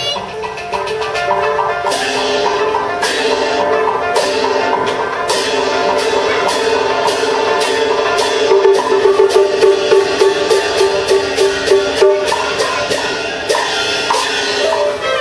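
Teochew opera instrumental accompaniment: wood block and drum strikes over a sustained pitched melody line, the strikes coming quicker and louder in the middle.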